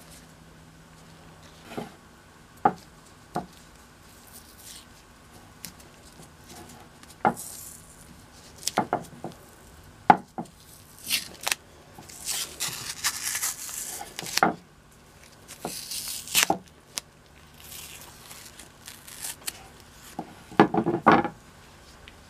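Green painter's tape being peeled and crumpled off a draw knife's handles by nitrile-gloved hands, in two longer tearing stretches near the middle, amid scattered knocks and clicks of the tool being handled on a wooden bench. A quick cluster of knocks comes near the end.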